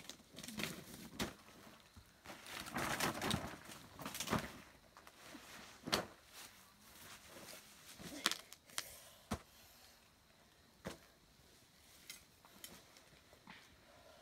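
Rustling of dry grass, leaf litter and banana leaves, with scattered short clicks and soft knocks, as someone moves over the ground and sits down on the leaves handling large citrus fruit. The rustle is loudest about three seconds in, and sharp single ticks follow now and then.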